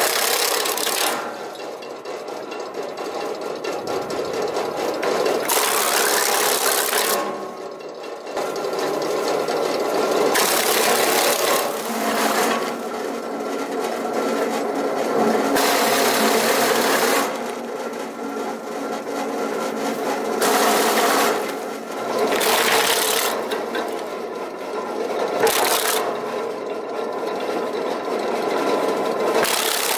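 Red Dragon RP-120 wood chunker, an electric motor turning knife shafts with eight knives each, running steadily. Every few seconds a loud burst of crunching and cracking lasting a second or two comes through as wood is chopped into short chunks.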